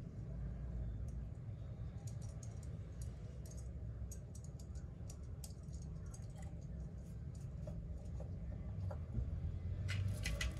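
Irregular light clicks and taps of small metal parts as a Yamaha 125 carburetor is handled and worked on by hand, thicker near the end, over a low steady background hum.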